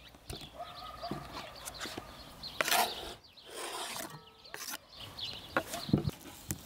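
Kitchen knife scraping diced raw chicken off a wooden cutting board into a metal pan, with scattered soft knocks and rubs. There is a loud scrape a little under halfway through and a sharp knock of wood on the table near the end as the board is set down.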